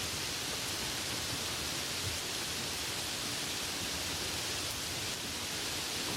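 Light rain falling steadily: an even hiss of rain with a soft patter underneath.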